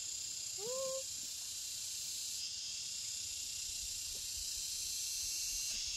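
Steady, high-pitched chirring of insects in the fields. About a second in there is one short rising chirp.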